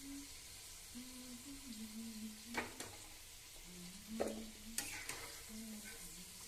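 Spinach-and-potato pakoras sizzling as they fry in hot oil, with a steady hiss. A utensil stirring them gives a few sharp clinks in the middle.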